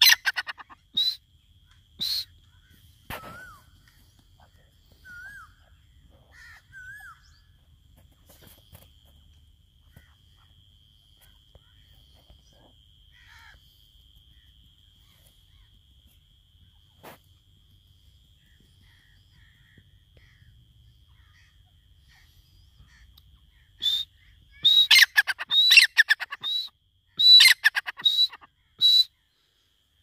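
Grey francolin calling: a few sharp single calls at the start and soft whistled notes, then a long quiet spell, then a loud run of rapid, rattling calls near the end.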